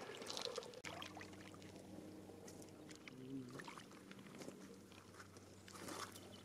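Faint lapping of small waves at a pebble shore with a low steady hum, and near the end a few footsteps crunching on loose pebbles.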